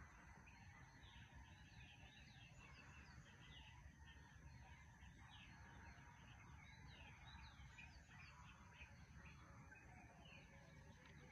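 Faint dawn chorus of many small birds, quick high chirps overlapping one another without pause, over a low steady background rumble.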